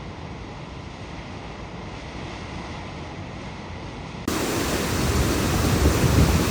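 Rushing water of a waterfall, a steady noise that jumps abruptly louder and deeper about four seconds in.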